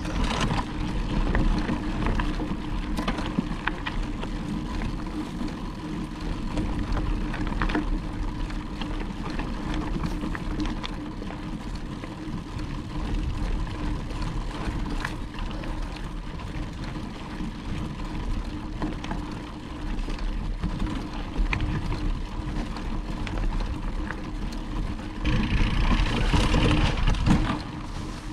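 Mountain bike rolling along a dirt trail: a steady low rumble with scattered clicks and rattles from the bike, and a louder rush of noise for about two seconds near the end.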